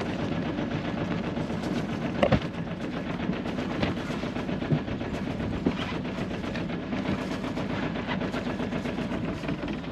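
A sailboat's inboard engine running steadily at low speed, a rapid even pulsing, while the boat creeps up on a mooring ball. A couple of short knocks sound over it, the loudest a little over two seconds in.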